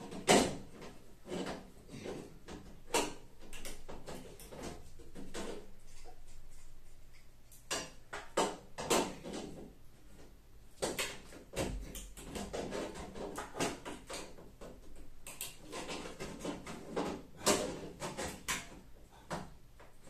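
Irregular clicks, knocks and scrapes of metal tools working the tumble dryer's dented sheet-metal top as it is being straightened, with a low thud about halfway through.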